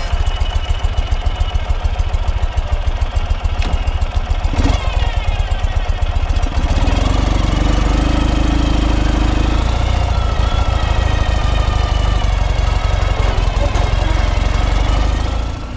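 Ural sidecar motorcycle's air-cooled flat-twin engine idling with a pulsing low beat, then running steadier and fuller from about seven seconds in as the rig pulls away and rides off.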